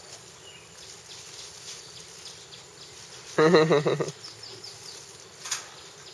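Insects faintly in the background, with one short voiced call of under a second about three and a half seconds in, and a brief sharp click near the end.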